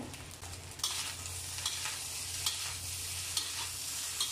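Egg fried rice sizzling in a stainless-steel wok as a metal spatula stirs and scrapes it, with scattered clicks of the spatula on the pan. The sizzle gets louder about a second in.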